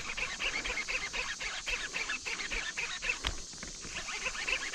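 Fishing reel clicking rapidly and unevenly, several clicks a second, as a hooked smallmouth bass pulls hard on the line, with one sharper click a little over three seconds in.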